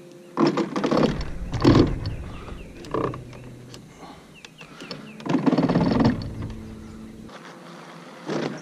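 Electric trolling motor on a small boat whirring in four surges, the longest about a second, with thumps and water churning as the boat and propeller run into submerged limbs in foot-deep water.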